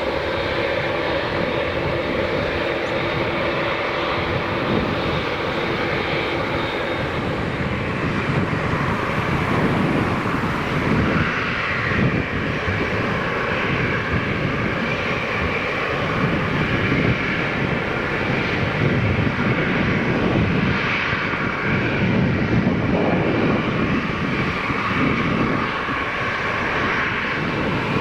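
Boeing 777 freighter's GE90 turbofan engines running at high power with a continuous jet roar. A few steady whining tones in the first several seconds give way to a deeper, fluttering rumble that grows a little louder.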